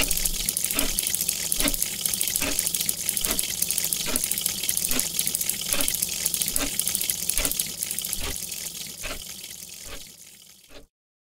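A steady rush of running water, with a soft pulse about every 0.8 seconds, fading out near the end and then cutting off.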